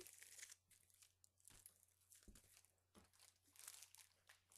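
Faint crinkling of the plastic shrink-wrap on a pack of cardboard gift boxes as it is handled, in short scattered bursts.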